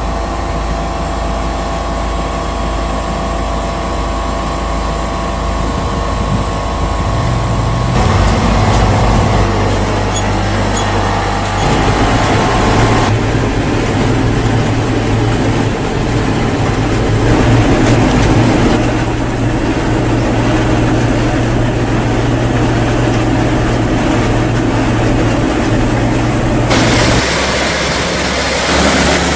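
Heavy farm machinery running: a steady engine with mechanical rumble, its sound changing abruptly three times.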